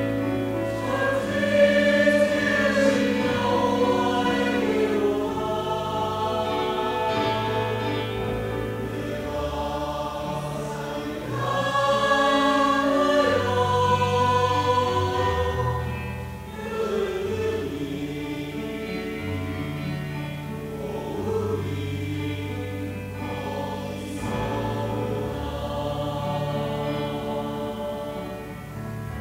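Mixed choir of men's and women's voices singing together in parts, with sustained held notes.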